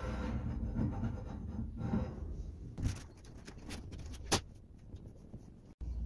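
Metal hand file rasping in a few strokes against the cut edge of a laminated table top's blade opening, then a run of light clicks and taps, the sharpest about four seconds in.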